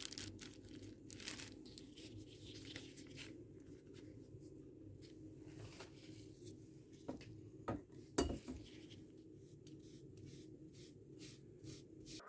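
Faint, irregular scratchy strokes of hand work on a painted metal scooter rim, with a few louder knocks about seven to eight seconds in.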